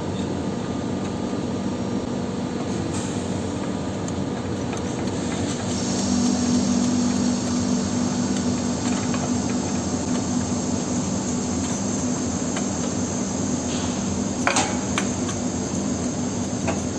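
Offline soldering machine running: a steady hum and hiss that gets slightly louder about six seconds in, with a couple of short clicks near the end.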